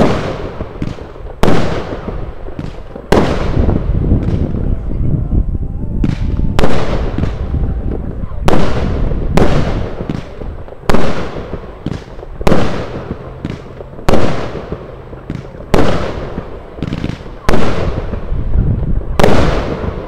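Lesli Thunderblock 16 firework battery firing: a series of loud single bangs at uneven intervals of about one to two seconds, each followed by a short fading rumble.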